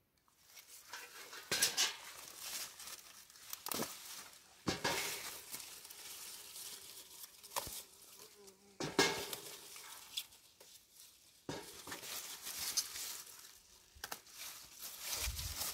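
Bell pepper plants' leaves rustling and crackling as hands push through them and pick peppers, with several sharp snaps of stems breaking.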